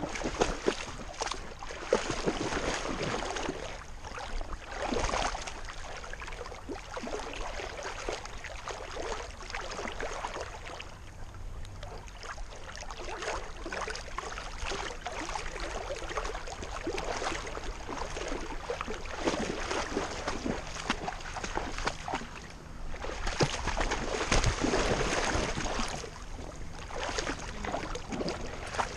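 Water splashing and sloshing as an English Setter swims and wades through a creek, close to a camera strapped on its back, in an uneven run of small splashes.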